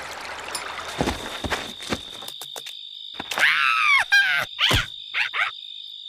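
Cartoon soundtrack: a few soft thumps, then from about three seconds in a cartoon larva's wordless squeals and grunts whose pitch sweeps up and down, in several short bursts. A steady high-pitched tone sounds underneath.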